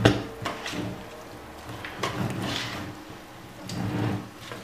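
Shredded raw white cabbage, dressed with oil, being mixed and squeezed through by hand in a bowl: wet squishing and rustling, with a sharp knock at the start and a few lighter clicks.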